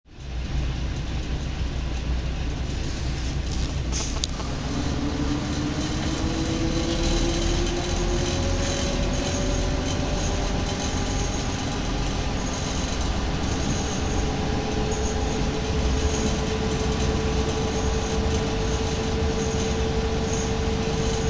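Train running at a station, heard from inside the carriage: a steady low rumble with a whine that rises in pitch a few seconds in and then holds steady, and a single click near the start.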